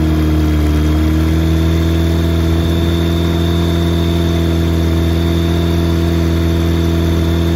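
Rotax 912iS fuel-injected four-cylinder aircraft engine in a Sonex running steadily with its propeller turning, with a slight dip in pitch about half a second in.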